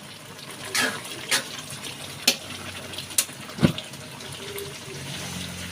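A few sharp clinks of a metal spoon against the cooking pot of curry, spaced about a second apart, over a steady watery hiss.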